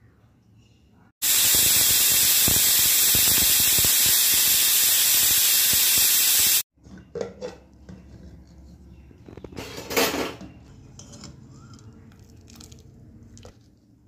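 Pressure cooker letting off steam in a loud, steady hiss for about five seconds, which starts and stops abruptly. Afterwards come metal clicks and clatter as the cooker's lid is twisted open.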